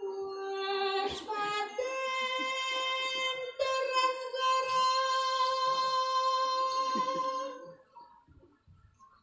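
A high singing voice holding long drawn-out notes, stepping up in pitch over the first two seconds and then sustaining one note until it fades out about two seconds before the end.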